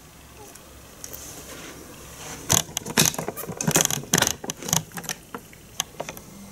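Sharp clicks and rattles of a plastic GPS mount being handled and fitted onto a bicycle stem with elastic bands. The clicks come in a dense flurry about midway, then thin out to a few single ticks.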